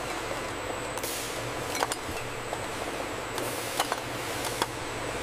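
Glass bottles clinking against each other on a bottling-line conveyor, several sharp clinks at uneven intervals over a steady machinery hum.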